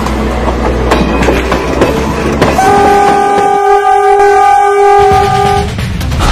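Train running on the rails with a rumble and clatter, then its horn sounds one steady blast of about three seconds, starting about two and a half seconds in.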